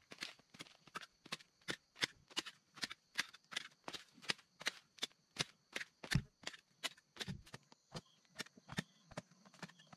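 Hoe blade chopping into dry, compacted soil in a quick, even rhythm of about three strikes a second.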